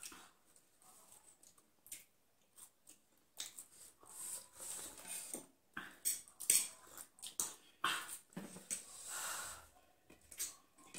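Eating sounds from two people at a table: chewing, breathing and a sip from a mug, with spoon and fork working on a ceramic plate, in short irregular bursts.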